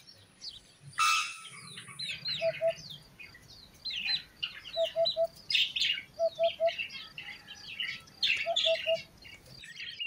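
Young chicks and small cage birds chirping and peeping continuously. A short, low three-note call repeats four times among them.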